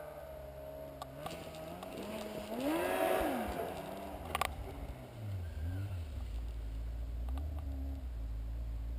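2007 Yamaha Apex MTX snowmobile's four-stroke inline-four engine through an aftermarket exhaust, revved up and back down about three seconds in, then settling to a steady low running note. There is a sharp click partway through.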